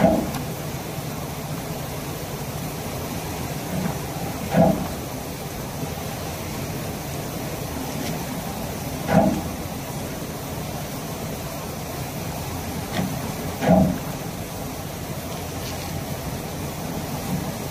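Veneer clipper running with a steady machine hum, its knife cutting the passing veneer ribbon with a sharp knock about every four and a half seconds, four times, some cuts with a lighter knock just before.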